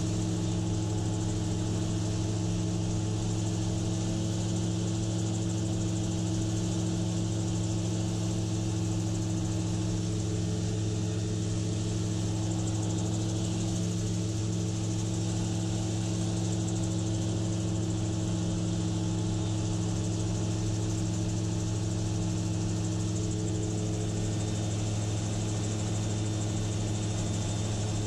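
Gyrocopter's engine running steadily in flight, with an even rush of air over it.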